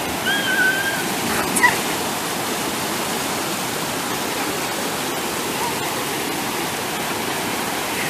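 Waterfall cascade pouring over rock slabs, a steady rushing of water. Near the start there is a brief high-pitched call, and a sharp click about a second and a half in.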